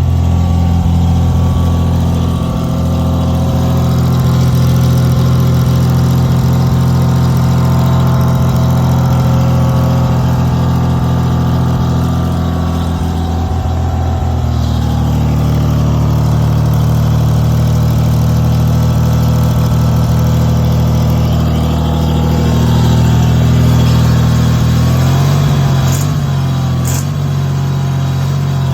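Engine-driven generator running steadily under electrical load from a bank of dryer heating elements. Its engine note shifts and settles several times as the load changes.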